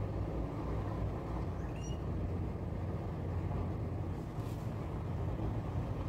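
Steady low outdoor background rumble, with a couple of faint short bird chirps, one about two seconds in.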